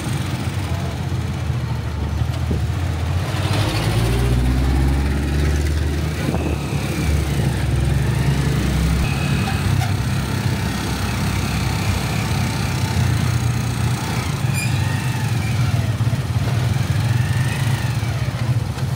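Small motorcycle engine of a Philippine tricycle (motorcycle with passenger sidecar) running under way, heard from on board, with its pitch climbing as it speeds up about four seconds in.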